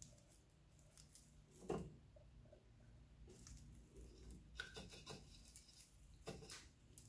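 Faint scratchy swishes of a homemade straw Hakeme brush sweeping slip across the inside of a clay bowl and being dipped in a jar of slip: a handful of short strokes, the clearest a little under two seconds in.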